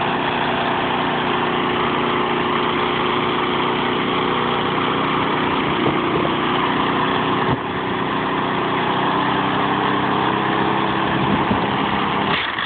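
Small lawnmower engine running steadily at a constant pitch. Its sound dips briefly about halfway through and falls away near the end.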